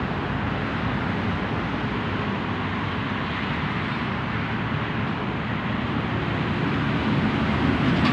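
Road traffic passing on the road, a steady rush of vehicles that swells near the end as a large truck goes by.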